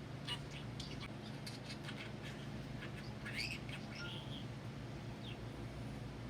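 Pet budgerigar chattering quietly: scattered short chirps and clicks, with a brighter rising chirp about three and a half seconds in, over a steady low hum.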